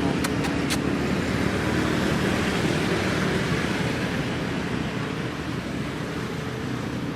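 Steady motor-vehicle engine and traffic noise that slowly eases off, with two short clicks near the start.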